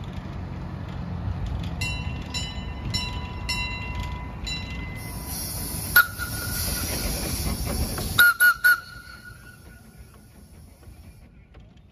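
Cockerill steam tram locomotive running along tram rails with a low rumble while its bell rings in a quick series of strokes. A hiss of steam starts about five seconds in, and sharp clangs come once near the middle and three times in quick succession about eight seconds in. These clangs are the loudest sounds.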